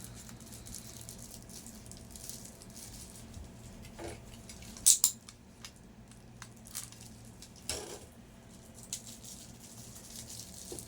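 Small hard clicks and faint rustling as watches and their wrapping are handled on a table, with a sharp double clack about five seconds in and a softer knock near eight seconds.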